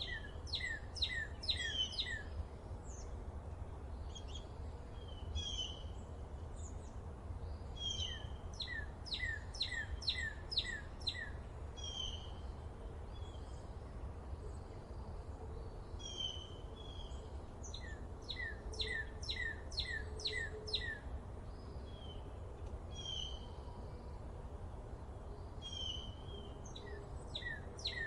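A songbird singing a phrase of quick, repeated falling notes, the song coming back every several seconds, over a steady low outdoor rumble.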